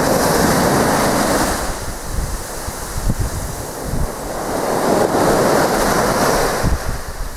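Sea waves washing up a sandy beach: two surges of surf, one at the start and another about five seconds in, with wind buffeting the microphone.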